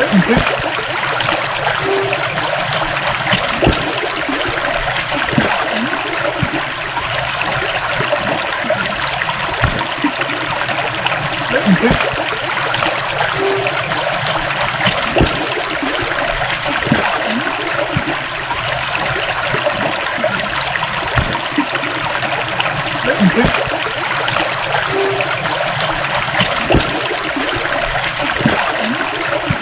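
Water running and trickling in a small stream, a steady babbling with many small splashes.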